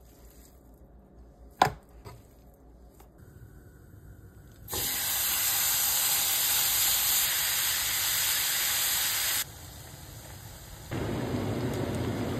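A single sharp knock, then bacon sizzling in a hot frying pan as it is stirred. The sizzle cuts off suddenly, and near the end it comes back as the fuller bubbling sizzle of bacon frying in its rendered fat.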